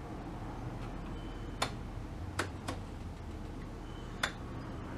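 Four sharp clicks from the switch keys of a vintage tube tester being set for the next tube, the middle two close together, over a faint steady low hum.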